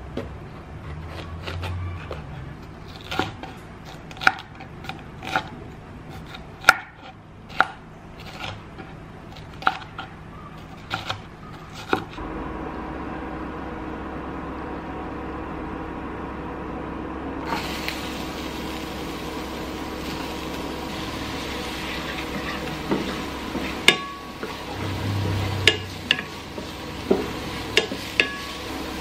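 Kitchen knife cutting through a bell pepper on a wooden cutting board, sharp cuts about once a second. After a cut, a steady low hum, then from a little past halfway diced onion sizzling in oil in a frying pan while a wooden spatula stirs and taps against the pan.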